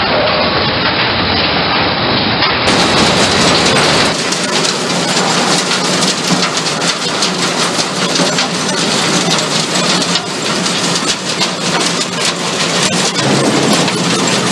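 Waste-recycling screening line running: a dense rattling clatter of small fragments of waste moving over a perforated 12 mm screen deck. About four seconds in, the low machine rumble drops away and the rattling goes on.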